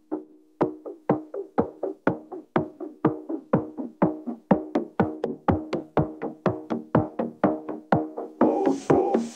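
Electronic music: a steady beat of short percussive hits with pitched notes, about four hits a second, and a hissing swell near the end.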